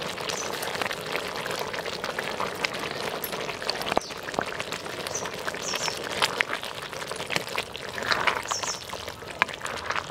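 Tamarind curry (puli kuzhambu) bubbling at a steady boil in a clay pot, with many small pops and splutters.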